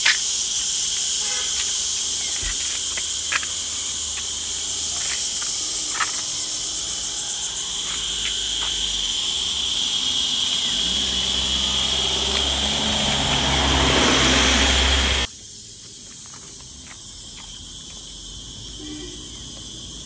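Loud, steady, high-pitched buzzing of an insect chorus in forest, with scattered clicks. A low rumble builds up in the middle, then the sound cuts off sharply about fifteen seconds in, leaving a much quieter insect buzz.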